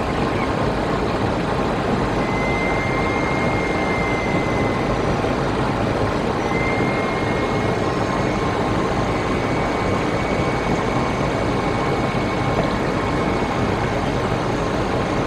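Aircraft cockpit noise: a steady, loud engine and air rush with no change in level, with a faint thin whine tone that fades in and out.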